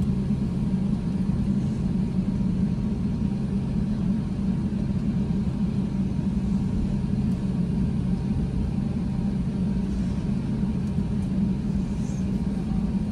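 Steady low rumble inside an airliner cabin as the aircraft taxis on the ground with its engines running, holding an even level with no build-up of a take-off run.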